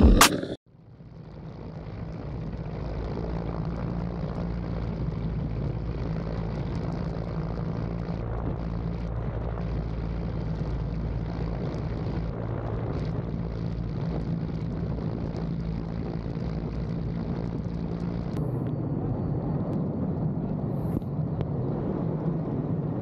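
Helicopter running close by, a steady rotor and engine drone that fades in at the start and holds. Near the end the hissing top of the sound drops away and a faint high whine remains.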